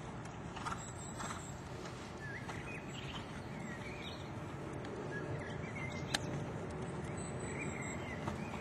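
Small birds chirping in short, scattered calls over a steady background hiss, with one sharp click about six seconds in.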